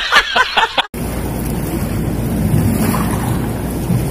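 A burst of rapid, pitched, edited-in laughter cuts off abruptly about a second in. After that comes a steady rush of wind on the microphone over the flowing river.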